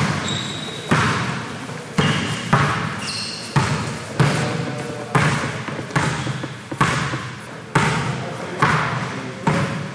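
Basketball being dribbled on a gym floor at a slow, even pace of about one bounce a second, each bounce echoing in the hall. A few short high squeaks come in between the bounces.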